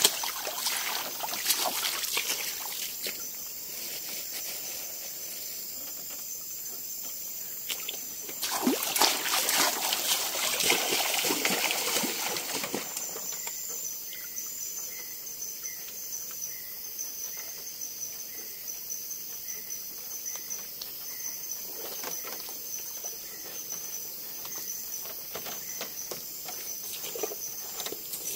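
Water splashing and sloshing in two bursts, one at the start and a louder one from about nine to thirteen seconds in, over a steady high chorus of forest insects. In the middle a faint chirp repeats about twice a second.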